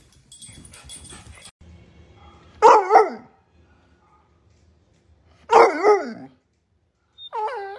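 A long-eared hound barks and howls up at its owner in two loud, drawn-out calls that waver in pitch, about three seconds apart. A shorter call falling in pitch comes near the end. These are the complaining, demanding vocal 'talk' of a dog begging for more food.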